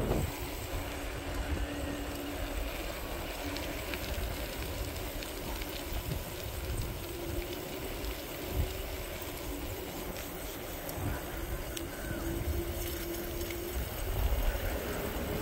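Electric bike riding along: a faint steady whine from its motor, stepping up a little in pitch about seven seconds in, over a low rumble of wind and tyre noise on the road.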